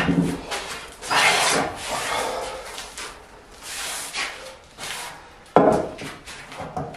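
Hand plane shaving the top of an oak slab: several rasping strokes of uneven length, the sharpest starting suddenly near the end.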